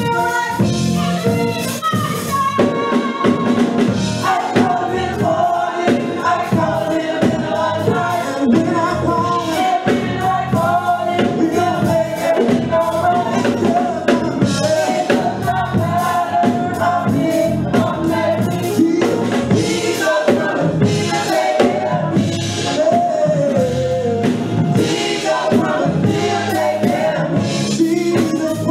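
Gospel vocal group of men and women singing together into microphones, with instrumental backing and a steady percussive beat.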